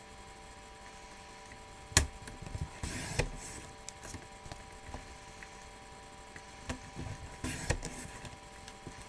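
Sliding-blade paper trimmer cutting cardstock in two passes. Each pass is a sharp click followed by a short scraping rustle, about two seconds in and again about seven seconds in.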